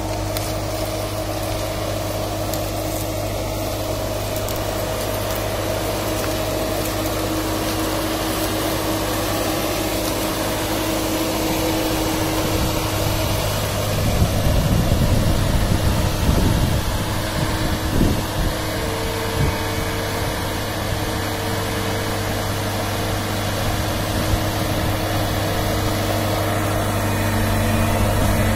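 Self-propelled high-clearance crop sprayer's engine running steadily with a constant low hum, growing louder and uneven for a few seconds midway.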